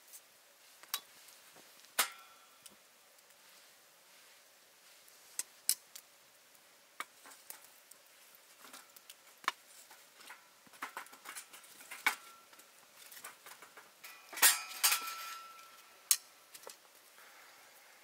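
Wood fire crackling in a metal fire stand: scattered sharp pops and snaps, with a few short metallic clinks as tongs shift the burning logs. The pops come thickest and loudest about three-quarters of the way through.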